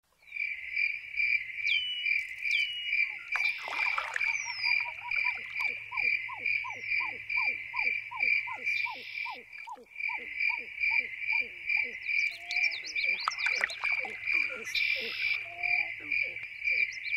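Night-time chorus of frogs and insects: a high chirp pulsing at a steady quick rate, with a brief break near the middle, and a run of quick falling croak-like calls from about four seconds in.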